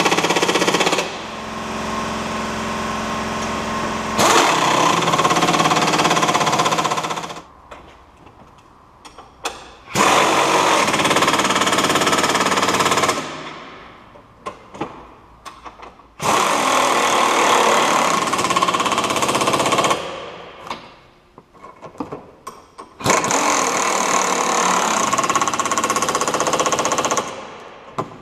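Impact wrench hammering in several runs of a few seconds each, tightening the tow bar's mounting bolts to the van chassis. Each run fades out at its end, and the short pauses between them hold small clicks of the tool and fittings.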